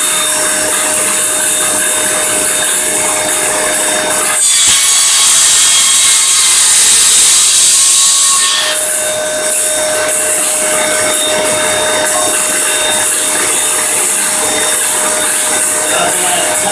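Homemade table saw's circular blade cutting a veneered particleboard strip, with a vacuum cleaner running on the dust hose. About four and a half seconds in, the cut bites: for about four seconds the hiss grows brighter and louder and the steady motor tone drops away, then the steady running returns.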